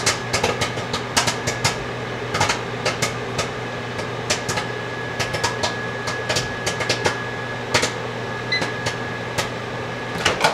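Orville Redenbacher microwave popcorn popping in its bag inside a running microwave oven: sharp, irregular pops, a few a second, over the oven's steady hum. The popping has slowed to scattered pops, the stage at which the oven is stopped so the popcorn doesn't burn.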